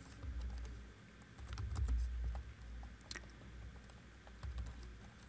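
Computer keyboard being typed on: faint, irregular key clicks in short runs.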